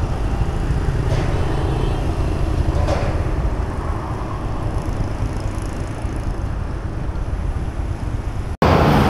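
Street traffic noise: vehicles running by with a steady low rumble. Near the end it cuts off abruptly and is followed by louder rushing noise.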